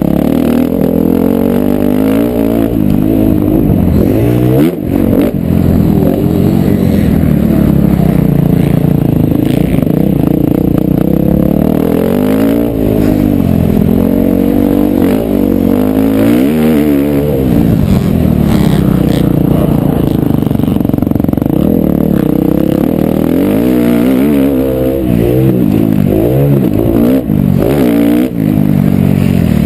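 2011 KTM 350 XC-F's single-cylinder four-stroke engine revving up and falling back again and again as the bike is ridden hard around a dirt motocross track, heard from the rider's helmet. The engine note drops off briefly a few times.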